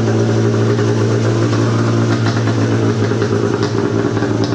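Engine of a 100 hp engine-swapped John Deere Gator UTV idling steadily and loudly through a freshly chopped shorty exhaust.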